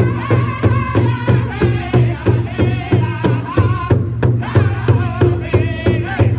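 A powwow drum group striking one large drum in unison, about three beats a second, with several men singing over the beat. The singing breaks off briefly about four seconds in while the drumming carries on.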